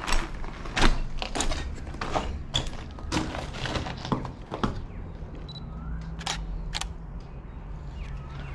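Irregular crunches and clicks: footsteps on a floor strewn with broken tiles and debris, mixed with the handling of a handheld camera. A steady low hum runs underneath.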